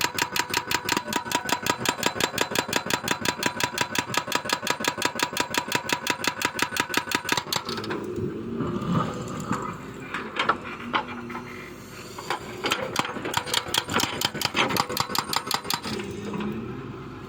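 Excavator's motor running with a fast, even pulsing of about six beats a second, then cutting off abruptly about eight seconds in. Irregular clicks and knocks follow.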